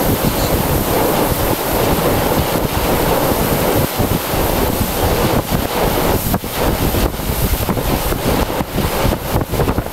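Strong wind buffeting the camera's microphone: loud, gusty noise with short dropouts throughout.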